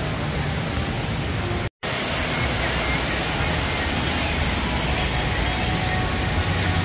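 Steady rushing water of an indoor river with its fountains and falls, a loud, even wash of noise. It drops out to silence for a moment just under two seconds in and then carries on unchanged.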